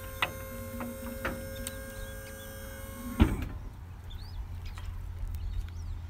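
Electric hydraulic tipper pump on a trailer, running steadily as the tipping bed lifts. A few light clicks come in the first second and a half. A loud thump comes a little past halfway, after which the sound drops to a lower steady hum.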